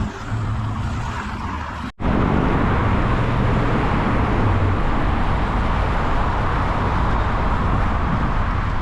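Steady road traffic noise, broken off for an instant about two seconds in and then continuing a little louder.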